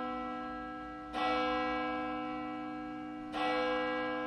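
A deep bell struck twice, about a second in and again near the end, each stroke ringing on and fading slowly over the ring of the one before.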